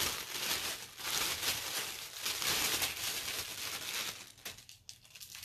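Tissue paper crinkling and rustling as it is unwrapped by hand, dense for about four seconds, then quieter with a few light crackles near the end.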